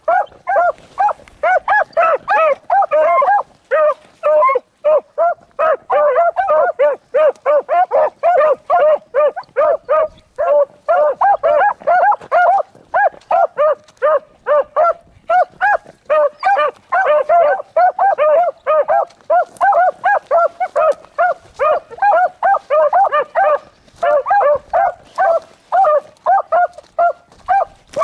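Beagle hounds barking steadily in quick succession, two to three barks a second, giving tongue as they run a rabbit's track.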